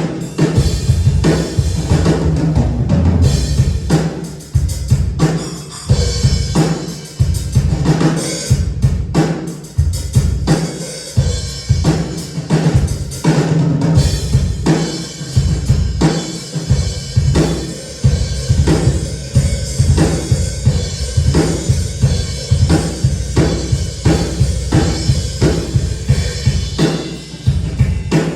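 A drum kit playing a busy, steady beat with kick drum and snare hits, at full volume through a PA during a soundcheck.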